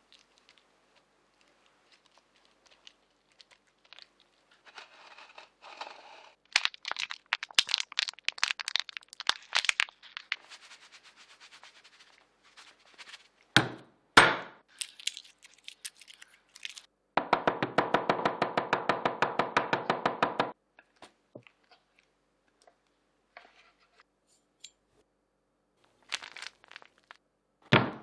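Crackling and tearing of papery garlic skin as a clove is peeled. Then come two sharp knocks on a plastic cutting board, and a run of rapid knife chopping, about ten strokes a second for some three seconds, as the garlic is minced. A few knocks near the end as a lemon is set on the board.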